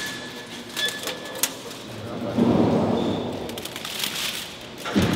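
Thin sheets of rusted metal and flattened bottle-cap metal clinking and rustling as the sculptures are stepped on and pulled by hand: a few sharp clicks in the first second and a half, then a longer rustling swell, and a knock near the end.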